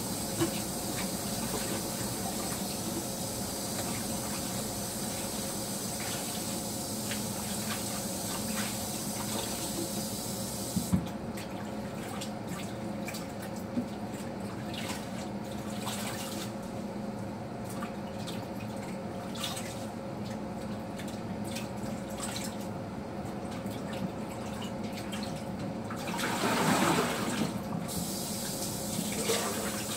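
Kitchen tap water running into a sink as watercress is rinsed in a plastic colander, with splashing and a few light knocks, over a steady hum. The hiss of running water drops away about eleven seconds in, and a louder rush of water comes near the end.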